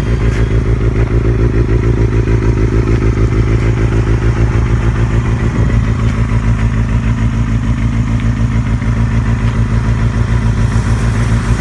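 Kawasaki ZXR250 inline-four engine running steadily at idle, with an even pulsing throb.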